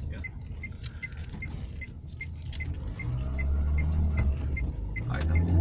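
Car engine heard from inside the cabin, its low rumble growing louder and rising in pitch from about three seconds in as the car accelerates through a gear change. A steady light ticking, about two and a half ticks a second, runs through it.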